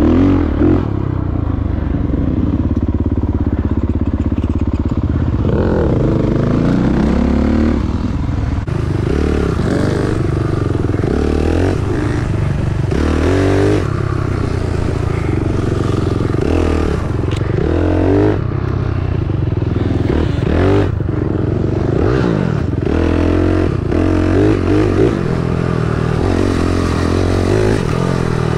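Dirt bike engine running hard on a trail, its revs rising and falling every second or two as the rider works the throttle.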